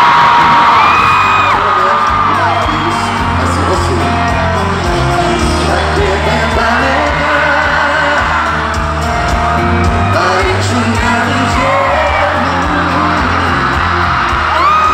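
Live sertanejo band playing loud through the arena sound system, with singing over a heavy bass and a crowd screaming and whooping around the recording phone.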